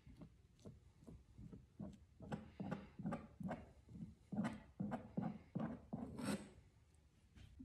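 Rhythmic rubbing strokes of a tool dragging wet pigmented paper pulp across the paper surface, about three a second. They grow louder from about two seconds in and end with a longer swish.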